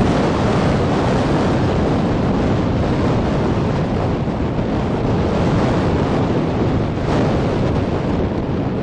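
Steady wind buffeting the microphone aboard a moving tour boat, over the rush of sea water along the hull.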